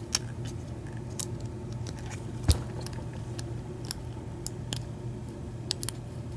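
Lock pick and tension wrench working in a Master Lock padlock's M1 keyway: scattered light metallic clicks as the pins are picked, with one sharper click about two and a half seconds in. A steady low hum runs underneath.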